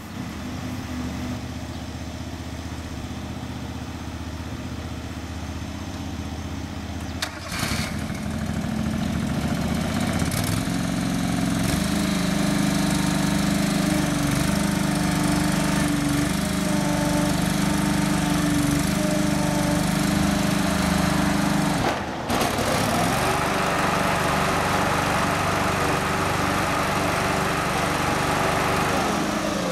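John Deere 425 riding mower's 20 hp liquid-cooled V-twin engine running steadily, growing louder and fuller about ten seconds in and holding at the higher speed. There is a momentary drop in the sound about two-thirds of the way through.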